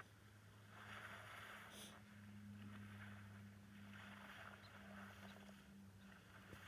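Faint sloshing and splashing of shallow water as an elephant bull wallows and rolls in a river, coming in swells, over a steady low electrical hum.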